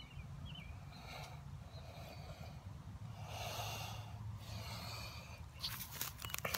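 A person breathing hard after the exertion of hand-drill fire making: several deep, hissing breaths about a second apart. Near the end comes a cluster of sharp clicks as the wooden fire set is handled.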